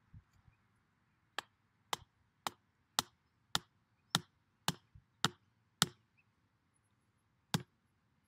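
Hammer driving a wooden garden stake into the ground: nine sharp blows at about two a second, then one last blow a little under two seconds later.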